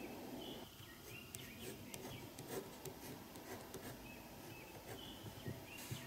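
Faint scratching of a pen writing on notebook paper, with a few soft taps. Faint short high chirps sound now and then in the background.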